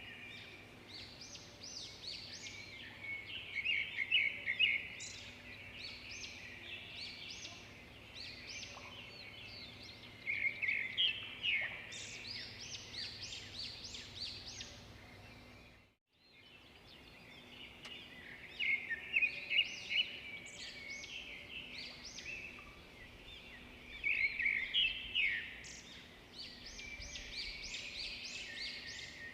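Small birds chirping, many short overlapping calls that swell into louder clusters every several seconds.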